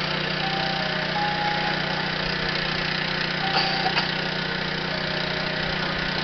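Engine idling with a steady low hum. A few short high tones and two sharp clicks come about three and a half to four seconds in.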